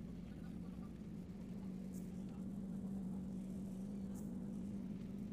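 Faint steady low hum over a light background hiss, with two very faint ticks about two and four seconds in.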